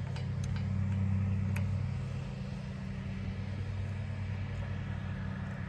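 Steady low hum of an idling engine, with a couple of faint clicks in the first two seconds as a propane hose fitting is threaded by hand onto the tank's GasStop valve.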